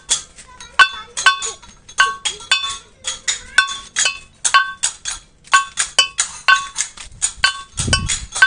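A small metal percussion instrument struck over and over in a steady beat of about three strikes a second, each strike ringing briefly on the same few bell-like pitches, as accompaniment to a children's mock Barong procession. A low thump comes near the end.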